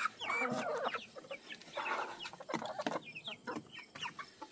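A flock of backyard chickens clucking, with many short calls that rise and fall, as they chase and peck up live crickets tipped out for them.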